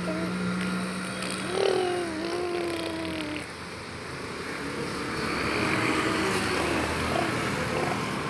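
A girl making a whistle sound with her mouth: one call about two seconds in that jumps up, slides down and is held for over a second, over a steady background hum. A louder breathy hiss follows in the last few seconds.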